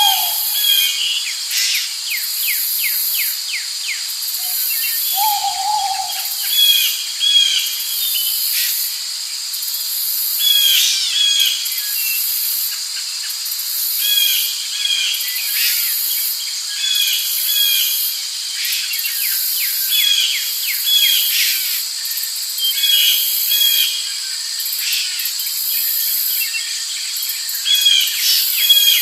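Forest ambience: a steady high chirring of insects under repeated short bird calls. A lower hooting call sounds right at the start and again about five seconds in.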